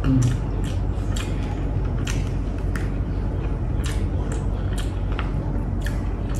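A person eating by hand: chewing and lip-smacking, heard as short, irregular wet clicks, over a steady low hum.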